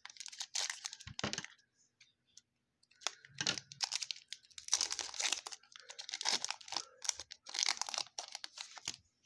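A trading card pack wrapper being torn open and crinkled in a series of short bursts.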